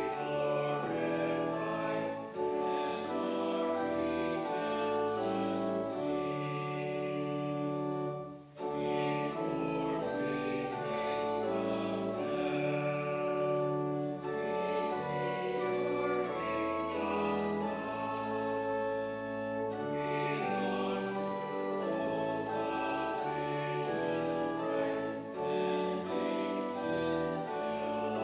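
Congregation singing a hymn with organ accompaniment, held chords moving every second or so, with a brief pause between lines about eight seconds in.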